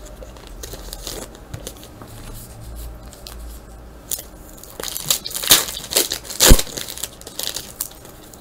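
A foil wrapper on a pack of 1999 Upper Deck SP Authentic basketball cards is torn open and crinkled. There is light rustling at first, then a run of loud crackling tears from about five to seven seconds in.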